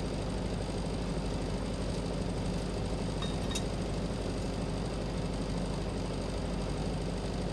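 Welding on a 1-inch stainless steel flange: a steady buzzing hum with hiss, with a faint click about three and a half seconds in.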